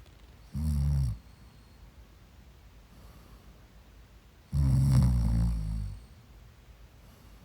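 A sleeping person snoring: two loud, low-pitched snores, a short one about half a second in and a longer one starting about four and a half seconds in.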